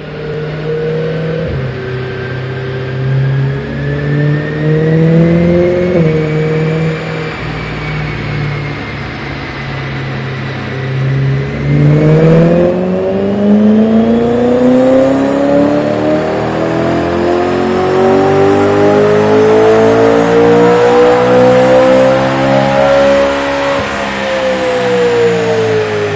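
BMW E92 M3's 4.0-litre V8 on a chassis dyno through an MXP exhaust with X-pipe. It holds low, fairly steady revs for about twelve seconds, then climbs smoothly in one long full-throttle pull for about eleven seconds, with a thin whine rising alongside, and the revs fall away near the end as the driver lifts off.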